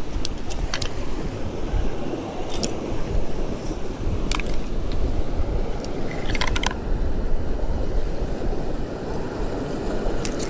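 Steady wind and surf noise, with a few light metallic clinks every couple of seconds.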